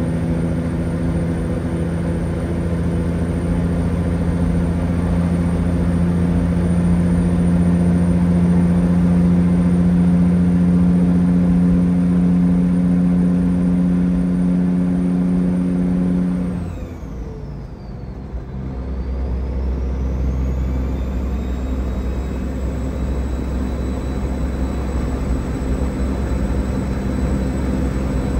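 Peterbilt 379's diesel engine and road noise heard from inside the cab while cruising, a steady engine drone. About two-thirds through, the sound briefly dips with a high tone swooping down and back up. Then the drone carries on lower in pitch.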